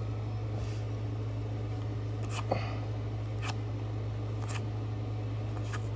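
Steady low electrical hum with a few soft clicks about a second apart, from paper trading cards being flipped through by hand.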